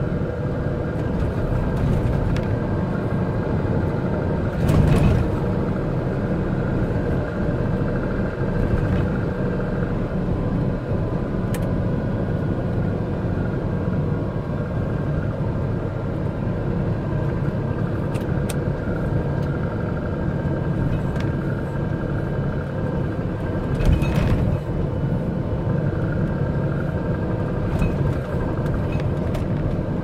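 MAN concrete mixer truck's diesel engine and road noise heard from inside the cab while driving at steady speed, with two brief louder thumps about 5 and 24 seconds in and a few light rattles from the cab.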